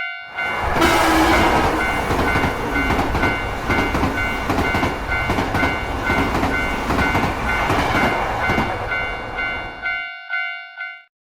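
Japanese railway level-crossing alarm ringing its "kan-kan" bell about twice a second while a train passes, wheels clattering over the rail joints. The train noise ends about ten seconds in, the bell rings on briefly and then stops.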